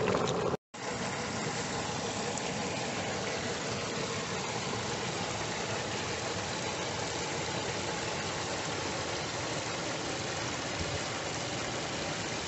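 Geothermal steam vent (fumarole) hissing steadily, a constant even rushing noise that starts just after a momentary dropout near the start.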